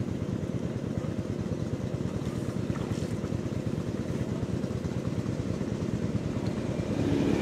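An engine running steadily at a constant speed: a low, even rumble with a fast pulse.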